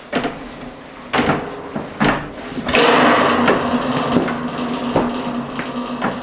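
Knocks and footfalls on a wooden loft ladder as someone climbs it, about three in the first two seconds. From about three seconds in comes a longer scraping and rustling as things are moved about in the loft.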